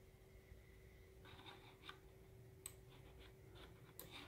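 Near silence: quiet room tone with a faint steady hum and a few soft, sharp clicks of a computer mouse.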